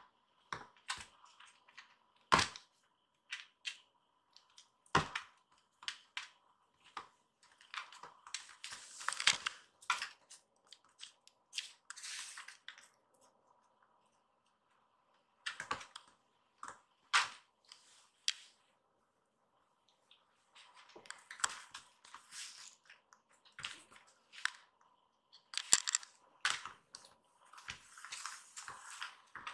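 A kitten pouncing on and batting a small cloth toy across tatami mats: irregular scuffs, scratches and taps of paws and claws on the straw matting, with a short quiet spell about halfway through.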